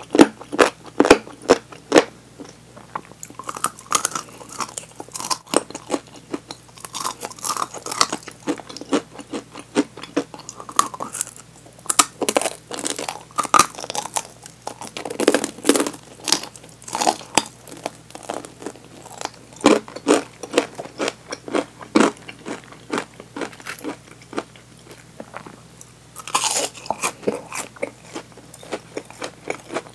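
Crunching and chewing of crisp-battered fried chicken drumettes close to the microphone, with many irregular crunches from bites of the coating.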